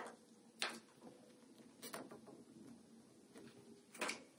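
A few faint, scattered taps and clicks of small adhesive enamel dots being pressed by hand onto a paper scrapbook page, the loudest a little before the end.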